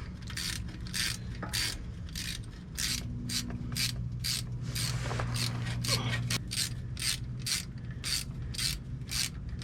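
Hand ratchet clicking in quick repeated back-strokes, about two or three a second, as the small 10 mm oil pan riser bolts are snugged up by hand.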